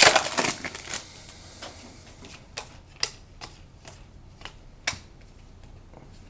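Trading cards and a foil pack wrapper being handled on a table: a crinkle of wrapper in the first second, then a string of light, sharp clicks and taps as cards are set down and sorted.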